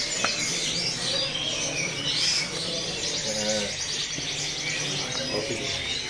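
Several domestic canaries singing at once: fast trills and high chirps overlapping.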